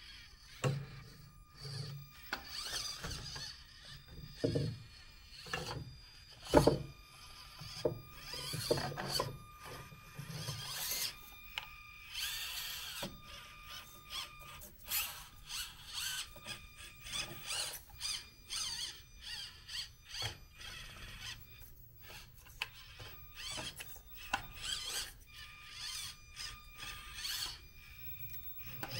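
Axial SCX24 micro RC crawler's small brushed electric motor and gears whining in short stop-and-go throttle bursts as it crawls over stone slabs, with scattered knocks of the truck on the rock, the loudest about six and a half seconds in.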